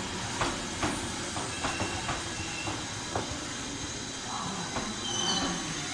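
Tobu 10050 series electric commuter train pulling into a station, its wheels knocking over rail joints in an irregular clatter over a low rumble. A faint high squeal comes in near the end.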